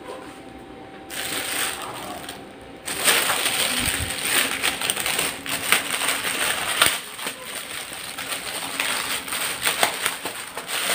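Thin clear plastic packaging bag crinkling and rustling as hands handle it. It starts faint, and from about three seconds in it becomes a dense, continuous crackle.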